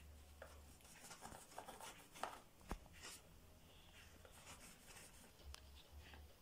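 Faint scratching of a crayon drawing on pink-painted cardboard toilet-paper tubes, in short irregular strokes with a couple of light taps about two to three seconds in.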